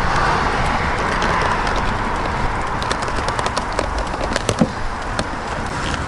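A run of small sharp clicks and taps, mostly between about three and five and a half seconds in, from hands handling parts and the hose around a go-kart engine's carburetor, over a steady background hiss.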